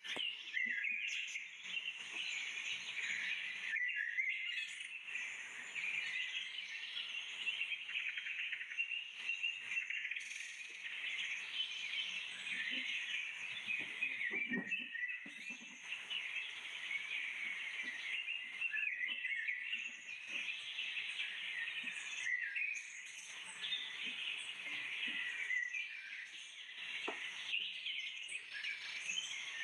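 Birds chirping and calling continuously, with a few faint knocks.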